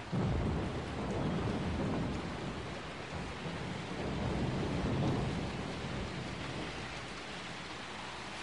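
Steady heavy rain with rolling thunder. Low rumbles swell twice, in the first two seconds and again around the middle, then ease off into an even hiss of rain.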